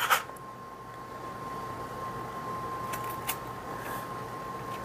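Quiet handling of a metal cookie cutter being pressed into rolled cookie dough on a parchment-lined baking sheet, with a few light clicks about three seconds in. A faint steady high tone runs underneath.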